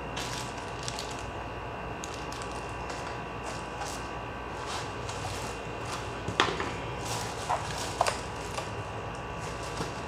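Plastic wrapping crinkling and rustling as a bagged mechanical keyboard is handled, with a few sharp knocks and clicks about six to eight seconds in as it is set down and moved. A steady background hum runs underneath.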